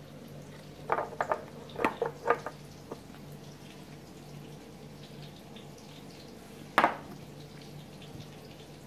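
Light taps and clicks from a spice container and utensils being handled over a small glass bowl: a cluster of small taps in the first few seconds and one louder knock near the end.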